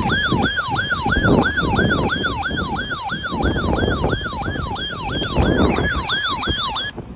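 Electronic siren yelping: a fast falling sweep repeated about two and a half times a second over a low rumbling noise, cutting off abruptly near the end.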